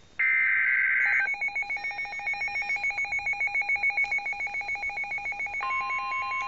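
The last burst of an Emergency Alert System SAME data header from a NOAA Weather Radio broadcast: about a second of shrill digital warbling. It is followed by a fast electronic beeping, about six pulses a second, and near the end the steady 1050 Hz weather radio warning alarm tone comes in.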